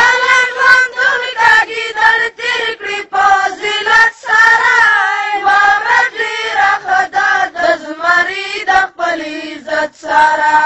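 A single high voice singing a Pashto milli naghma (patriotic song) in held, gliding phrases with short breaks between them, with no instruments heard.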